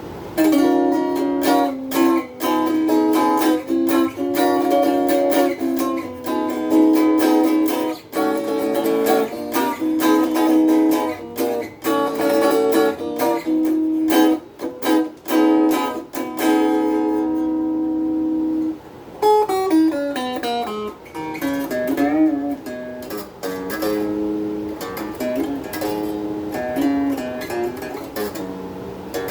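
Donner DST-80 strat-style electric guitar played through its small included practice amp. Chords are struck repeatedly for the first seventeen seconds or so; after a brief pause, single-note riffs with slides follow.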